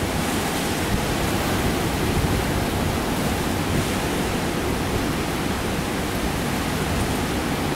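Hurricane wind and heavy storm surf breaking on the shore: a steady, dense rush of noise, with the wind buffeting the microphone in a low rumble.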